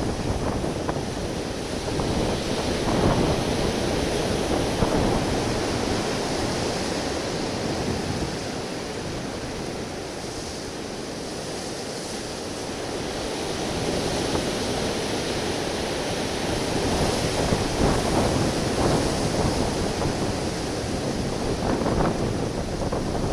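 Wind buffeting a small camera microphone over waves washing against a rocky shore. The rumble swells and eases, lighter about halfway through.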